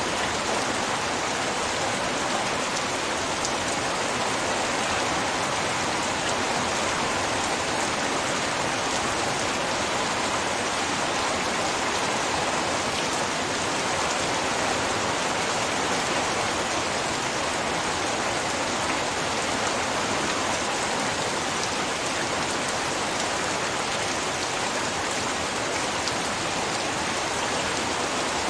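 Heavy, torrential rain falling steadily, a dense even hiss with fine scattered drop impacts.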